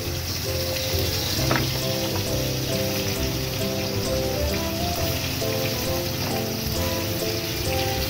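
Pieces of papaya, potato and green banana sizzling steadily as they fry in hot oil in a kadai, over background music.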